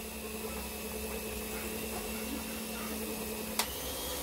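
Electric mixer running steadily with a low hum, its beaters turning in a bowl of cake batter. A sharp click comes about three and a half seconds in, and the hum's tone changes after it.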